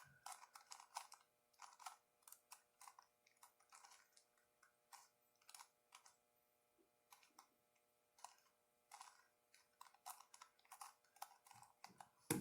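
Faint, irregular clicking of a Megaminx's plastic faces being turned during the last steps of a solve, with a pause of about two seconds in the middle and a louder knock near the end.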